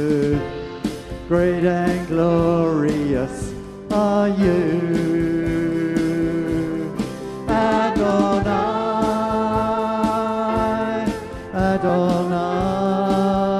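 Live church worship band: sung phrases of held notes, with slides between pitches, over acoustic guitar, bass guitar and drums. The voices break and come back in about every three to four seconds.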